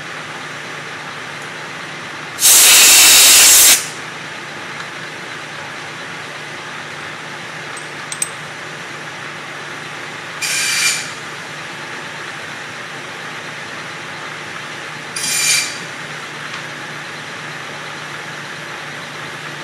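Bridgeport milling machine running with a steady hum, broken by three bursts of loud hissing: a long one of about a second and a half a few seconds in, then two short ones about halfway and two-thirds of the way through.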